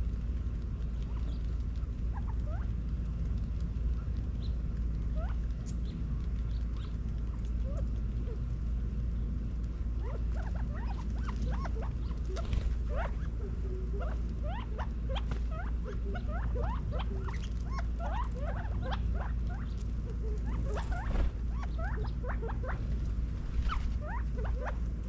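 California quail feeding as a flock, giving many short, soft chirping contact notes. The notes are sparse at first and grow busy about ten seconds in. A steady low rumble runs underneath.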